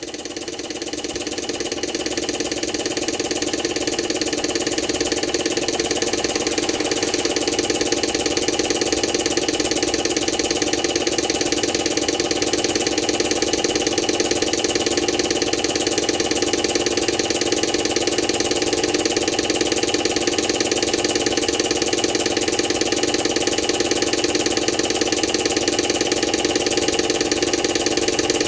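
Moriya Stirling hot-air engine running steadily, its crank, linkage and flywheel making a continuous mechanical running noise that grows louder over the first few seconds and then holds even.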